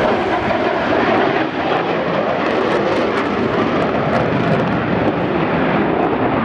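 Eurofighter Typhoon's twin jet engines: a loud, steady jet noise as the fighter manoeuvres at full power.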